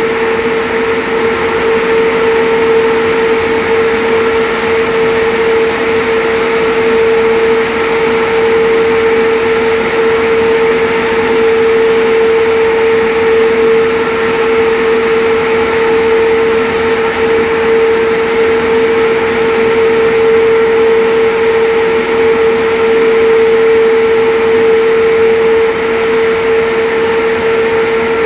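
Loud, steady machine hum with one strong steady tone and a few fainter ones over it, unchanging throughout: equipment running in the electrical room around the breaker panel.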